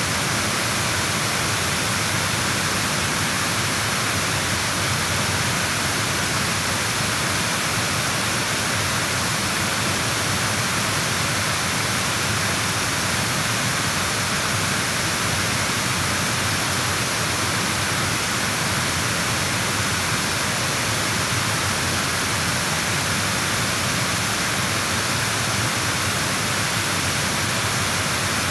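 Steady, unbroken rushing of flowing water, an even hiss across all pitches that does not change.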